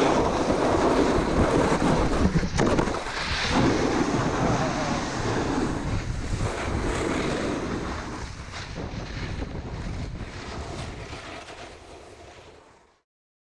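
Wind rushing over the microphone of an action camera as it rides down a snowboard run, a steady noisy roar that fades away over the last few seconds and cuts off just before the end.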